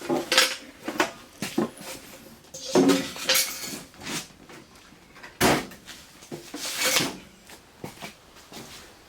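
Steel parts and tools clanking and rattling against each other as they are handled, in several separate bursts with short ringing tails.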